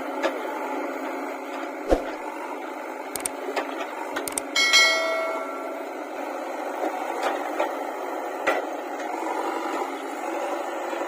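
A steady mechanical running noise with scattered sharp knocks, and one ringing metallic clang about five seconds in that fades within about a second.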